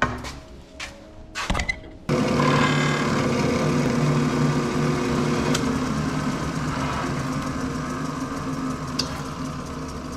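A few knocks, then about two seconds in a floor-standing drill press is suddenly heard running steadily, its motor and spindle humming while the bit bores into a wooden board.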